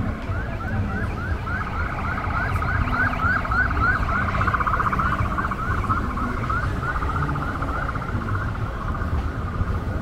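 Emergency vehicle siren in yelp mode: a quick rising wail repeating about three to four times a second, over a steady rumble of street traffic.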